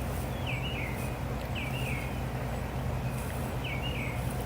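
A songbird singing short slurred phrases, one about every second, over a steady low drone.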